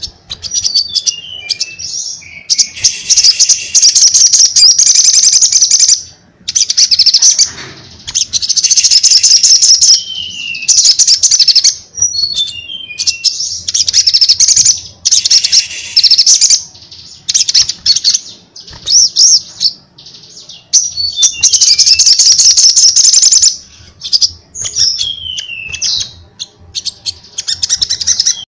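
A caged male sogon sunbird singing loudly and persistently: bouts of fast, high, chattering trills a few seconds long, mixed with quick runs of falling notes, with short pauses between them.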